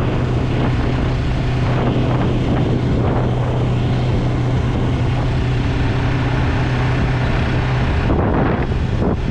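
Yamaha MT-03's parallel-twin engine running at a steady cruise, with wind noise on the microphone. The engine note drops away briefly near the end.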